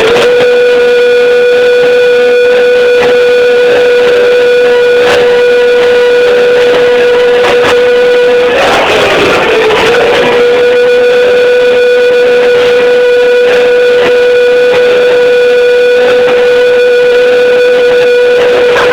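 Loud music dominated by one steady held note, broken briefly by a noisier passage about halfway through.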